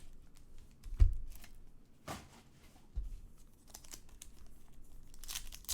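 Card-pack packaging being torn and cut open and crinkled by hand, with soft thumps about a second and about three seconds in. The first thump is the loudest sound.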